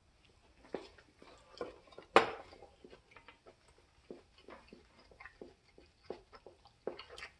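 Scattered small clicks and taps, with one sharp knock about two seconds in as a kitchen knife is set down on a plastic cutting board.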